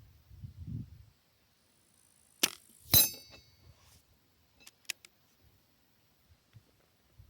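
Artemis CP2 .22 CO2 air rifle firing: a sharp crack, then half a second later a louder clink with a short metallic ring. Two faint clicks follow about two seconds later.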